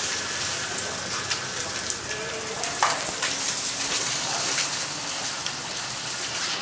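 Small rattan rocking chair rocking on a concrete floor, giving a few sharp knocks, the loudest about three seconds in, over a steady high hiss.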